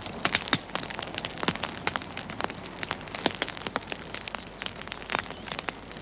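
Dense, irregular crackling and clicking over a steady hiss.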